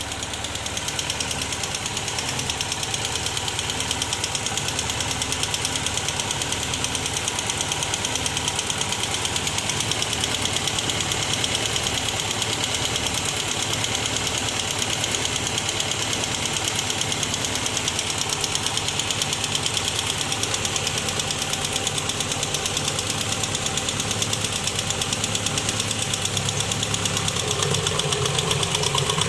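VW Passat B3 2-litre engine running with a steady, even knock from the top of the engine, which the owner suspects comes from dead or unbled hydraulic lifters. The sound grows a little louder near the end.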